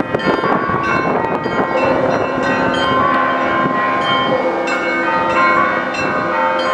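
Russian Orthodox church bells of the Naval Cathedral of St Nicholas in Kronstadt ringing: many bells struck in quick succession, their tones overlapping and ringing on.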